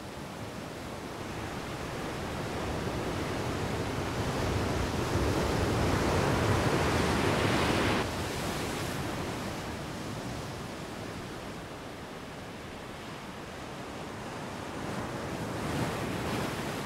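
Ocean surf breaking and washing in, swelling for several seconds, then dropping suddenly about halfway to a softer, steady wash that rises again near the end.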